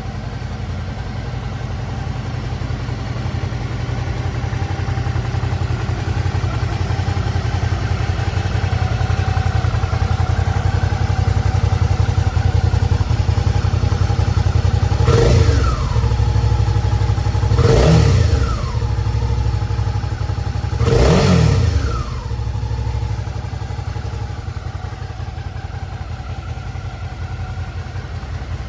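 Suzuki V-Strom 650XT's 645 cc V-twin engine idling steadily, with three quick throttle blips just past the middle, about three seconds apart, each rising in pitch and dropping straight back to idle.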